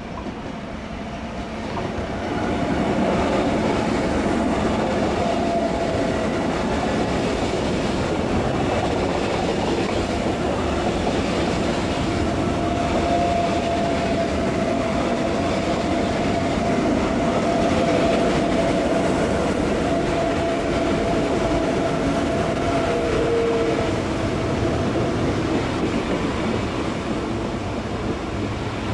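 SBB ICN (RABDe 500) tilting electric multiple unit running past on the station tracks: wheel-on-rail rumble and clatter that swells over the first couple of seconds and then holds steady, with a thin steady whine through much of the passage.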